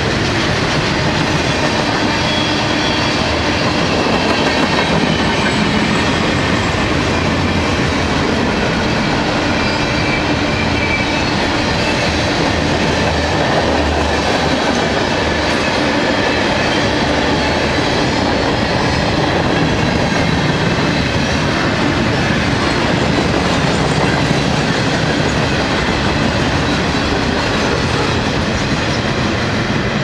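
Freight cars of a long mixed freight train rolling past: a steady rumble of steel wheels on rail, with clickety-clack as the wheels cross the rail joints.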